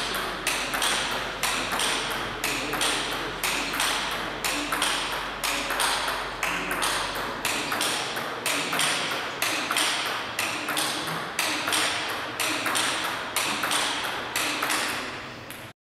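Table tennis rally: the ball struck back and forth by rackets and bouncing on the table, sharp clicks in a steady rhythm of about two to three a second. The rally runs without a break and is cut off abruptly near the end.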